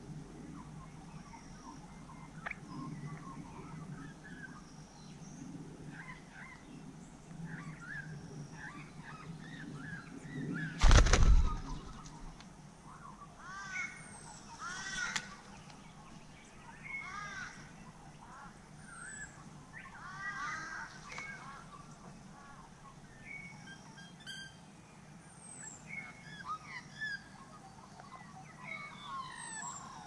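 Many short bird chirps and calls scattered throughout. About eleven seconds in, a brief loud rush and thump of noise stands out as the loudest sound.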